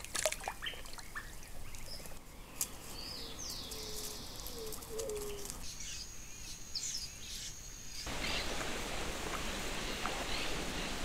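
Outdoor wildlife ambience that changes abruptly a few times: scattered bird chirps and calls with a few clicks near the start, short whistled notes in the middle, and an even hiss over the last three seconds.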